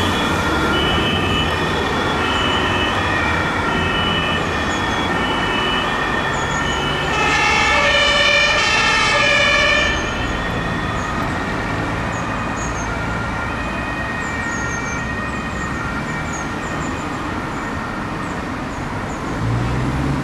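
German two-tone fire engine sirens (Martinshorn), several sounding at once out of step with each other, over the hum of vehicle engines; one siren is much louder and closer from about seven to ten seconds in, then fades.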